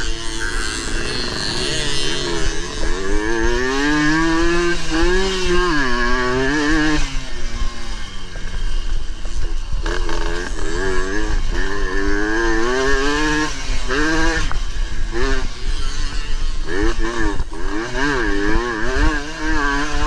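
Suzuki AX100 two-stroke single-cylinder motorcycle engine revving hard through the gears on a dirt track, its pitch climbing and dropping over and over as the rider opens and shuts the throttle. Wind noise on the microphone runs underneath.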